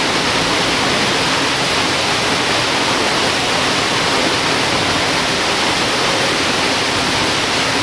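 Steady rushing of fast-flowing river water pouring into a pool, a constant even hiss with no breaks.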